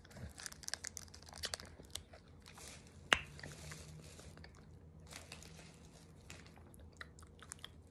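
Plastic freeze-pop sleeve crinkling as it is bitten and torn open, then biting and crunching on the frozen ice pop, with scattered crackles and one sharp snap about three seconds in.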